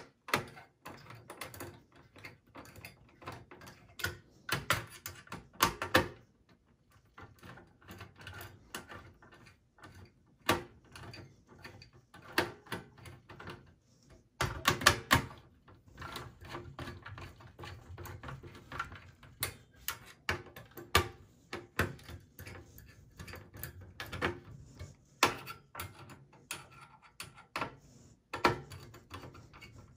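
Hand screwdriver tightening the screws of a CPU heatsink-and-fan assembly on a PC motherboard: irregular metallic clicks and short scrapes as the screws turn and seat, loudest about halfway through.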